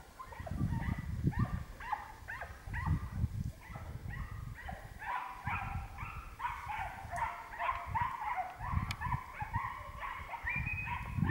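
A pack of podengo hunting dogs giving tongue on a hunt: a chorus of high, rapid yelps, several a second and overlapping. There are low rumbling bumps from the camera being carried.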